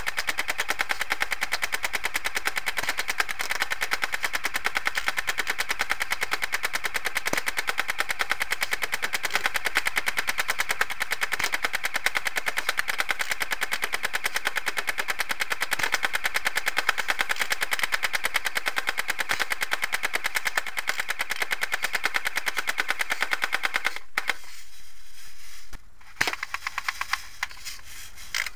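Airsoft gun firing a long, rapid stream of shots. It stops about four-fifths of the way through, and a few single shots follow.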